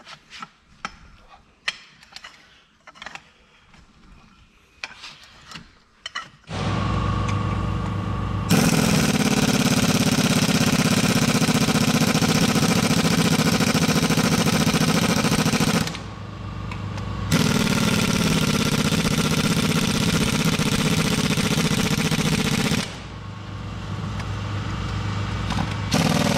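Light clicks and clanks of a hand wrench on tractor wheel hub bolts. About six seconds in, a pneumatic impact wrench starts running on the hub bolts, in long loud runs with a short break about sixteen seconds in and a drop in level near twenty-three seconds.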